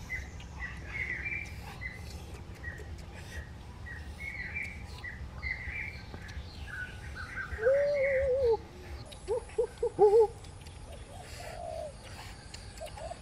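Wild birds chirping in short repeated notes. About halfway through comes a louder, lower wavering call lasting about a second, and a second later four short, louder calls.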